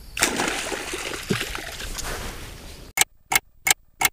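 Water splashing and sloshing in the shallows at the bank as a stringer of catfish is handled. About three seconds in it cuts to a clock-ticking sound effect, sharp ticks about three a second.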